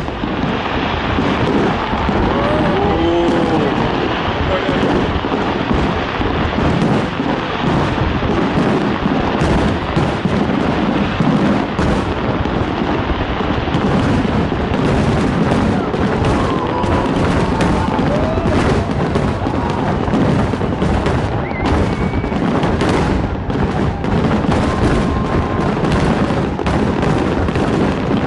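Fireworks display, with shells bursting in a dense, unbroken barrage of booms and crackles.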